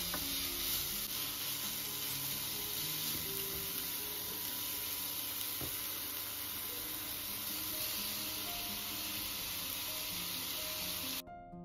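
Chopped onion and diced bell peppers sizzling as they fry in oil in a frying pan, stirred with a spatula, over soft background music. The sizzle cuts off abruptly near the end, leaving only the music.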